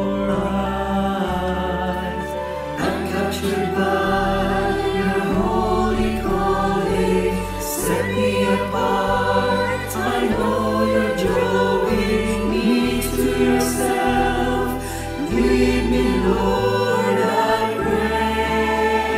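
Church choir singing a slow worship song in harmony, the voices recorded separately at home and mixed together, over an instrumental accompaniment with held low notes.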